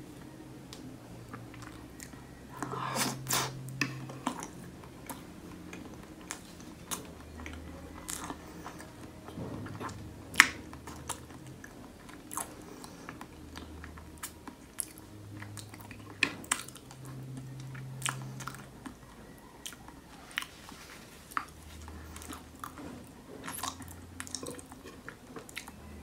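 Close-miked chewing of a bite of strawberry cheesecake with a crumbly crust, with many short, sharp clicks throughout. It is loudest about three to four seconds in, and the sharpest single click comes about ten seconds in.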